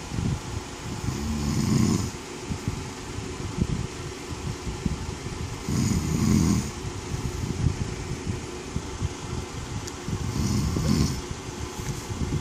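A man snoring in his sleep, with three loud snores about four to five seconds apart.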